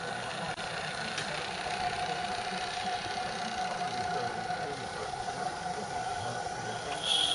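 16mm-scale narrow gauge garden railway train running past on the track: a steady running noise, with a faint held tone in the middle.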